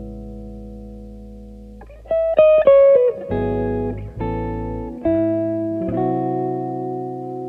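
Electric guitar playing a slow, unaccompanied intro: a ringing chord fades out, a quick descending run of single notes follows about two seconds in, then a few chords are struck one after another, each left to ring and fade.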